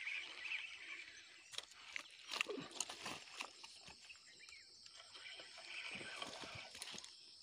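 Crackling and rustling of dry twigs and brush, with a cluster of sharp clicks and knocks about two to three seconds in, as a hooked snakehead is hauled up onto the bank. A steady high insect buzz comes in near the end.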